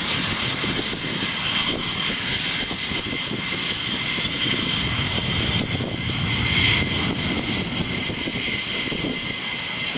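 F-104 Starfighter's J79 turbojet running steadily as the jet taxis along the runway: a high whine over a broad rumble, swelling slightly about two-thirds of the way through.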